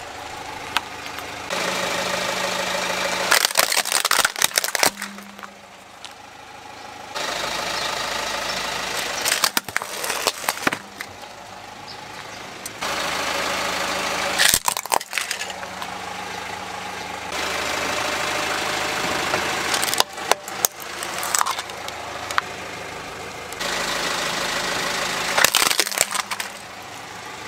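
A car tyre rolling slowly over plastic toys and crushing them, with repeated sharp cracks and snaps of breaking plastic. Between them the car's engine runs at low speed in stretches of a few seconds that start and stop abruptly.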